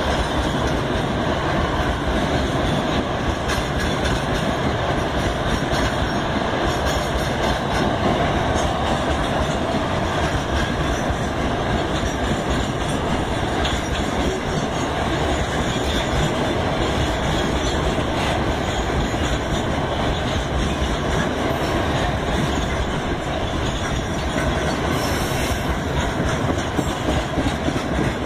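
Loaded bauxite ore wagons of a long freight train rolling past at close range: a steady, loud noise of steel wheels running on the rails.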